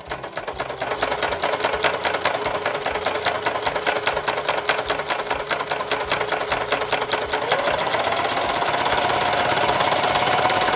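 Singer domestic sewing machine fitted with a walking foot, stitching through quilt layers and binding: a fast, even clatter of needle strokes over the hum of the motor, which speeds up about seven and a half seconds in.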